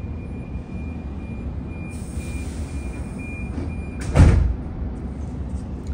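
Sliding passenger doors of an H-set (OSCAR) intercity train closing at the platform: a steady high tone and a hiss of air, then a loud thud as the doors shut about four seconds in. A steady low rumble from the idling train underneath.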